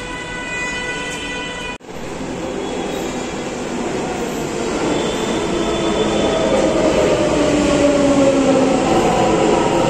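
Delhi Metro train pulling into the platform: its rushing running noise grows steadily louder, and an electric motor whine glides down in pitch as it slows. Before this there is a short steady high hum, cut off about two seconds in.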